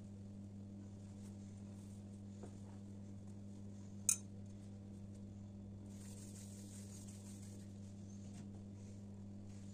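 Hands punching down and kneading soft risen yeast dough in a glass bowl, making faint squishing and rustling, with one sharp clink against the glass about four seconds in. A steady low hum runs underneath.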